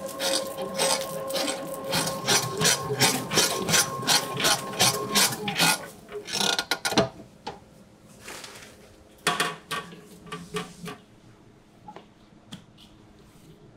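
Commercial bakery mixer kneading butter into a large batch of bread dough with its dough hook: a steady motor hum with rhythmic knocking of the dough against the steel bowl, about three to four beats a second. The mixer stops about halfway through, leaving a few scattered knocks and rubbing as the dough is handled in the bowl by hand.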